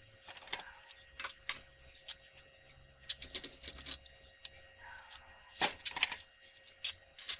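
Steel parts and hand tools clinking and knocking in irregular sharp clicks as they are handled, the loudest clink near the end.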